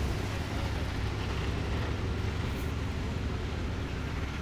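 Steady low rumble with a hiss over it: outdoor background noise.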